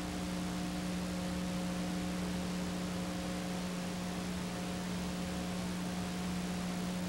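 Steady hiss with a constant low electrical hum and a few fainter steady tones above it, unchanging throughout: the background noise of a silent home-movie transfer, with no sound of the scene itself.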